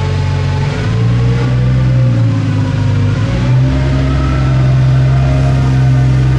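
ACER E-Lathe spindle and drive running steadily under constant surface speed control. Its whine slowly slides up and down, and the low hum shifts about a second in and again past three seconds, as the spindle speed changes.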